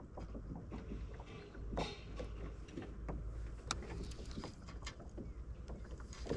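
Scattered light clicks and knocks from an angler handling his fishing gear in a small boat, over a steady low rumble.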